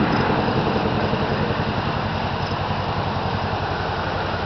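A motor running steadily, with a low hum and a fast, even pulse.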